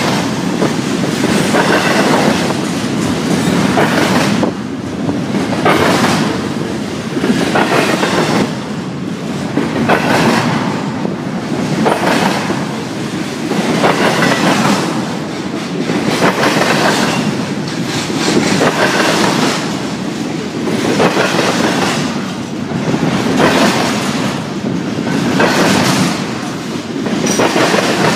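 Double-stack intermodal freight train rolling past at close range: the steady rumble and clatter of its steel wheels on the rails, swelling and fading about every two seconds.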